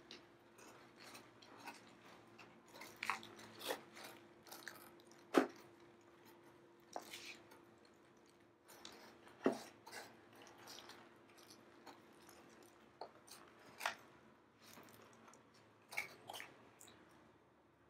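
Faint crackling and crumbling of fingers working old peat and fine roots off a Dioscorea elephantipes caudex, with scattered small snaps, the sharpest about five and a half and nine and a half seconds in. The peat is being stripped off for repotting into a fresh mix. A faint steady hum sits underneath.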